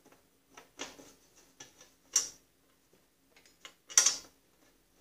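Scattered light metal clicks and scrapes of a bolt being worked by hand into a threaded hole in a Snapper rear engine rider's frame, with two sharper clicks about two and four seconds in. The bolt is really hard to start.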